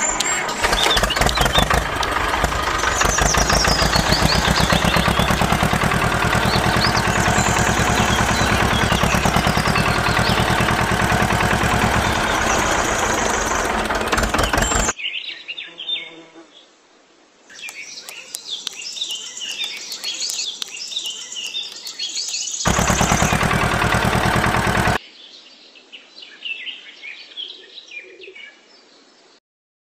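A small power tool running with a fast, steady rattle, stopping about halfway through and running again briefly a few seconds later. Birds chirp throughout, heard on their own while the tool is off.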